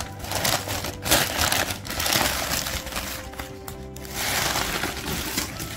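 Newspaper and plastic-bag wrapping crinkling and rustling in several bursts as it is pulled back by hand from a fossil, over background music.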